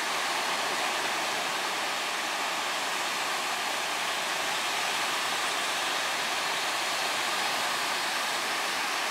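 Surf washing onto a sandy beach, a steady, even hiss of breaking waves.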